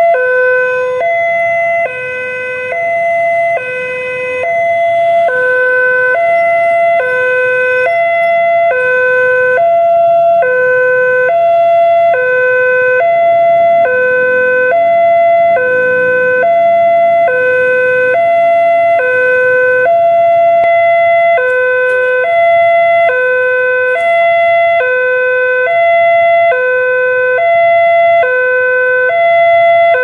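Railway level-crossing warning siren sounding from the loudspeaker on the crossing mast: a loud electronic two-tone signal that alternates evenly between a lower and a higher note, about one low-high pair a second, without a break. It signals that the crossing gates are closing for an approaching train.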